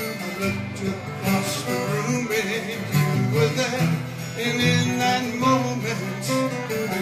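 Live acoustic guitars strummed and picked in a steady song, with a man's voice singing along.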